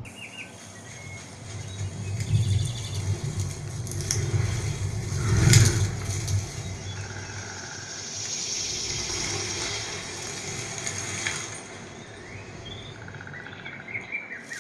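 A Dolby demo trailer's soundtrack played through a Philips DSP-30u 5.1 home theater and heard in the room: a nature soundscape of bird chirps over a low rumble, with one loud swell about five and a half seconds in.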